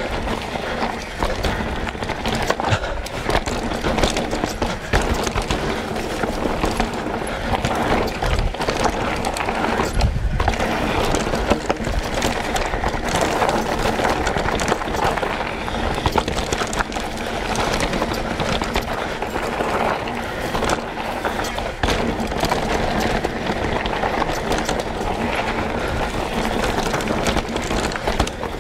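Mountain bike descending a dirt singletrack: knobbly tyres rolling over the trail as a steady rushing noise, with frequent knocks and rattles from the bike over bumps and roots.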